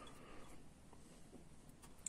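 Near silence, with faint brushing of a flat watercolour brush stroking water onto paper.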